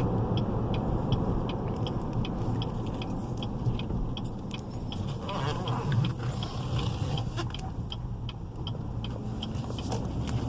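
Inside the cabin of a 2017 GMC Yukon Denali while it is driven: steady engine and road noise from its 6.2-litre V8, with faint light ticking over it.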